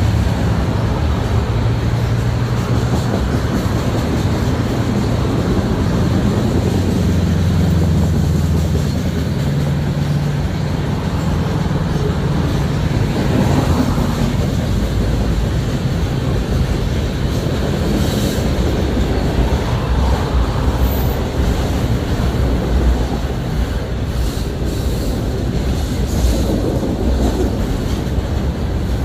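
Freight cars of a CN mixed freight train rolling past close by: a steady low rumble with the clatter of wheels on the rails.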